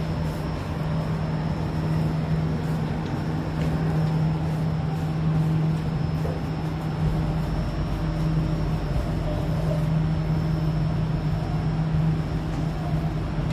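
Steady interior hum of a Jakarta MRT metro car as the train stands at a station: a low drone from the car's equipment with a faint high whine above it.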